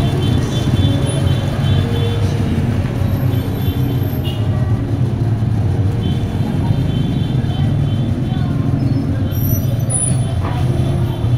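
A Toyota Corolla sedan's engine running steadily as the car moves slowly off across a gravel lot, heard as a continuous low rumble with light street traffic around it.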